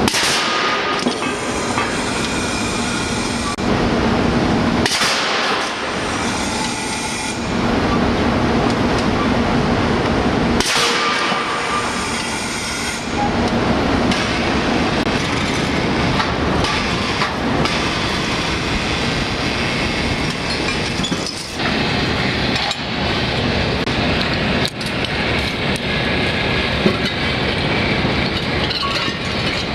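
PowerHammer Model 415 casting degating hammer running, a loud continuous rapid hammering with metallic clanging as it breaks gates off castings. The sound changes abruptly several times.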